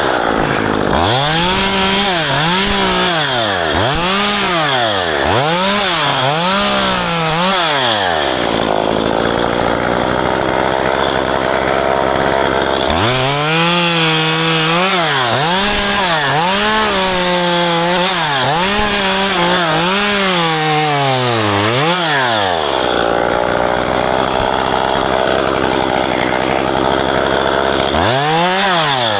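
Two-stroke chainsaw cutting ficus branches. The engine is revved up and down over and over, about once a second, with two stretches of steady high revs where it holds under load in the wood.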